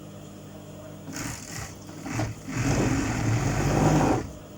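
Overlock (serger) sewing machine stitching and trimming a garment seam: two short runs about a second in, then a steady run of about two seconds that stops near the end.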